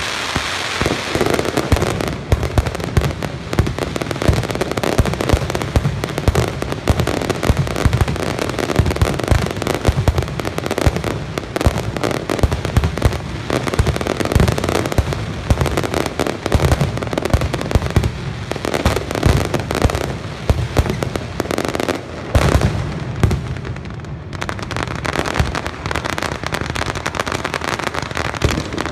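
Aerial fireworks display going off in a dense, continuous barrage of bangs and crackling bursts, with many sharp reports close together throughout.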